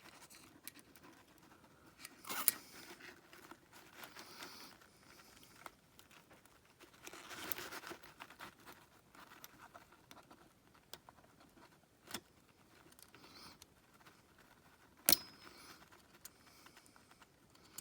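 Scattered metallic clicks, taps and short scrapes of small engine parts and hand tools being handled while a part is pressed and snapped into place; one sharp click about fifteen seconds in is the loudest.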